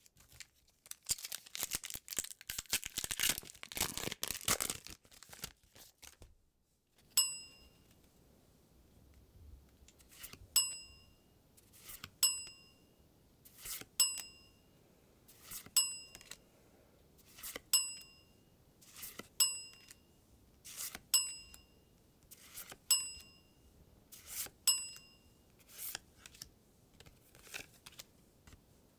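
A foil Pokémon booster pack wrapper being torn open and crinkling for about five seconds. Then cards are slid off the stack one by one, and each slide comes with a short chime sound effect, about a dozen times at a steady pace.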